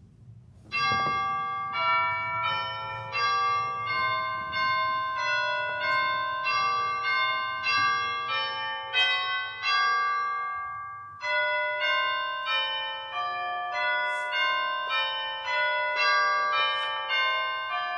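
Chimes playing a slow melody as a liturgical chimes response. Single struck notes ring and fade, a little under two a second, starting about a second in, with a brief pause about two-thirds of the way through.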